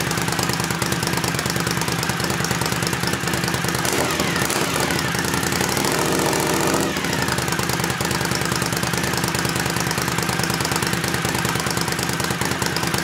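Suzuki TL1000S 996 cc 90-degree V-twin idling through a carbon slip-on muffler with its baffle removed, a loud, uneven, lumpy exhaust beat. Revs lift slightly for a few seconds about four seconds in, then settle back to idle.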